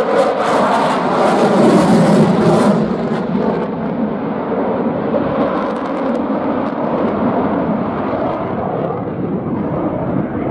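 Eurofighter Typhoon's twin jet engines roaring in afterburner during a display pass, loudest in the first three seconds and then settling to a steady roar.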